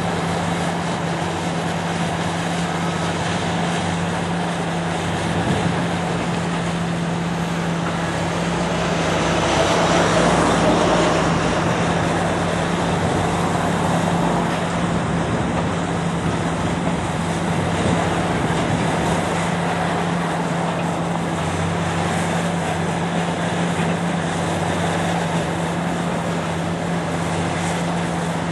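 Engine of heavy demolition machinery running steadily with a constant low hum, swelling louder for a few seconds about ten seconds in as it works.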